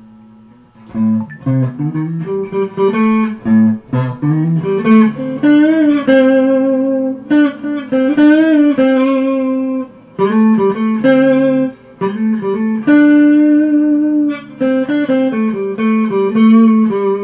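Squier Starcaster semi-hollow electric guitar played clean through an amplifier, starting about a second in. It is on its neck pickup alone with the tone knob turned down, which gives a mellow, jazzy tone. Single notes and chords are played, with a few bent notes.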